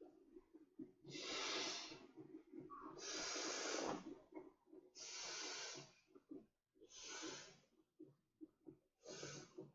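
A person breathing hard while blowing up a vinyl inflatable raft by mouth, with five heavy breaths about two seconds apart, the last two shorter.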